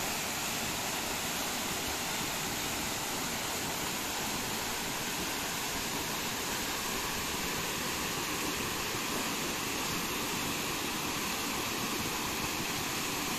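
Steady rushing of a waterfall plunging into a rocky pool, holding an even level throughout.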